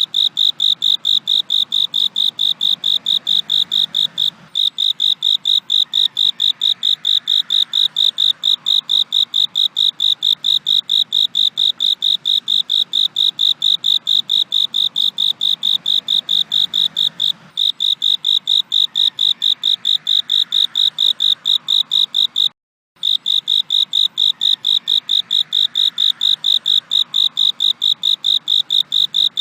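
Cricket chirping: a steady run of rapid, evenly spaced chirps on one high pitch, with a few brief breaks, the last a moment of silence about twenty-three seconds in.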